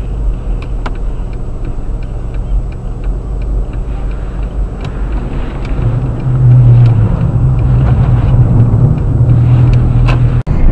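Car engine and road noise, steady, with light regular ticking over it. It grows louder about six seconds in.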